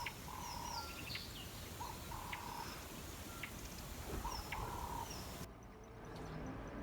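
Wild birds calling over steady outdoor background noise, repeating a short phrase of flat mid-pitched notes and higher falling notes about every two seconds. The calls stop abruptly about five and a half seconds in.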